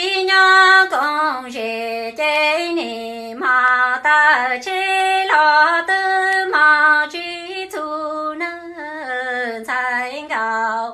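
A woman singing Hmong kwv txhiaj, unaccompanied sung poetry, in one long phrase of held notes that step between higher and lower pitches.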